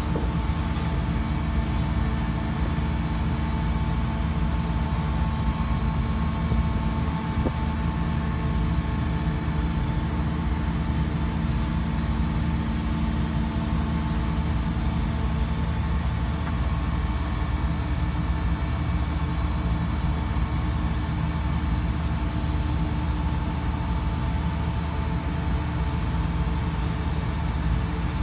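Putzmeister SIKA PM 500-PC shotcrete machine running steadily while its hydraulic spraying boom moves, with several steady tones over the running sound. One of the tones drops out about halfway through.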